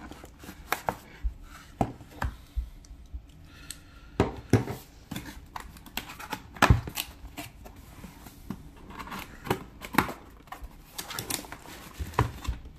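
A cardboard box being handled and opened: a small blade slitting the seal, then many irregular sharp knocks, taps and cardboard scrapes as the box is turned over on a table and its inner box slid out of the sleeve.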